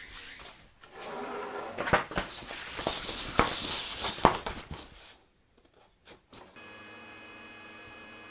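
Wet sandpaper rubbing over a motorcycle tank's clear coat, with several sharp knocks along the way. After a brief pause, a steady electric hum with a faint whine starts about two seconds before the end.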